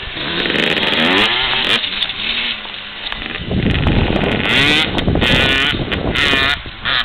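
125cc two-stroke motocross bike engine revving hard and shifting up through the gears, its pitch rising in repeated sweeps that break off at each shift.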